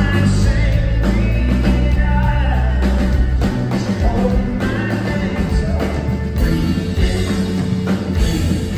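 Live folk-rock band playing, with a sung lead vocal over keyboard, drums and banjo, recorded from among the audience in a concert hall.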